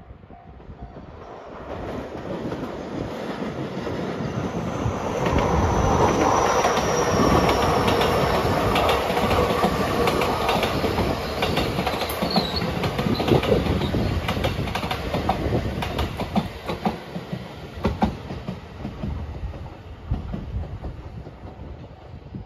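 Marine Liner rapid electric train passing close by, its wheels clacking over the rail joints. It grows louder over the first few seconds, is loudest through the middle and fades toward the end.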